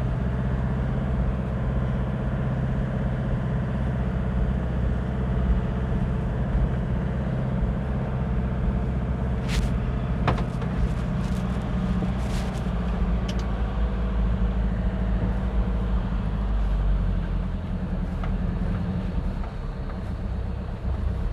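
Steady engine and road noise heard from inside a vehicle's cabin as it drives up a winding road, a low rumble throughout, with a few sharp clicks about halfway through.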